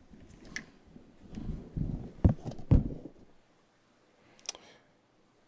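Low handling rumble with two dull thumps about two and a half seconds in, then dead silence broken by one faint click.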